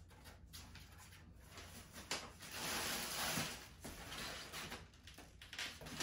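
Clear plastic wrapping around a boxed electric scooter crinkling and rustling as it is gripped and pulled. It is quiet at first with a few light clicks, and the crinkling turns loud from about two seconds in.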